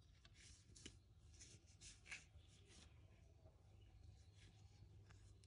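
Faint rustling and scratching of yarn being drawn through crocheted fabric with a plastic yarn needle: a cluster of soft strokes in the first three seconds.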